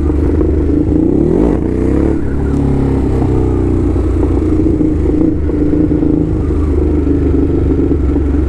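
Ducati motorcycle engine running while riding, with a quick change in engine pitch about a second and a half in, then holding a steady note, along with road and wind noise.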